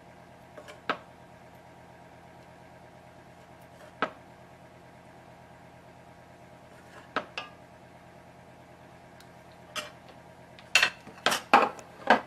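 Metal serving utensil clinking against a saucepan and a plate as sauce is ladled onto spaghetti: single sharp taps every few seconds, then a quick run of louder clatters near the end. A steady hum runs underneath.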